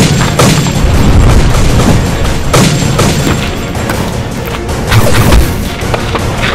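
Action-film music with dubbed booming gunshot and impact sound effects hitting several times at uneven spacing, the heaviest low thud about five seconds in.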